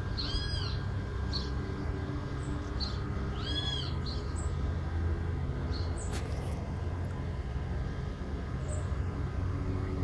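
Birds calling in a garden: two arched calls with overtones, one about half a second in and one about three and a half seconds in, among a few short high chirps, over a steady low rumble.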